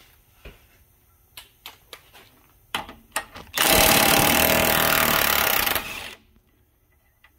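Impact wrench hammering for about two and a half seconds as it spins the rusty 19 mm castle nut off a ball joint stud, the nut coming off readily despite the rust. Before it, a few light clicks of the socket being set on the nut.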